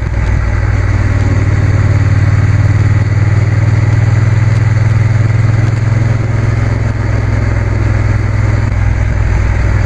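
Triumph T120 motorcycle's parallel-twin engine running steadily at cruising speed on the open road, with rushing air around the bike.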